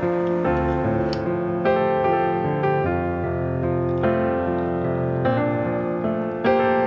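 Background piano music, a melody over held notes.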